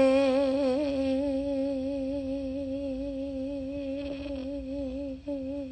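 A woman singing unaccompanied, holding one long note with a gentle vibrato that slowly fades. Near the end there is a short break, then a second held note.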